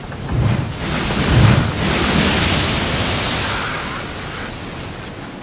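A wave breaking over the bow of a sailing catamaran: a rush of water and spray washes across the deck, builds from about half a second in, hits hardest with a low thud about a second and a half in, and fades away over the next few seconds.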